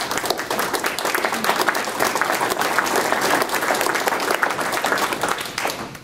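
An audience applauding steadily for about six seconds, fading out near the end.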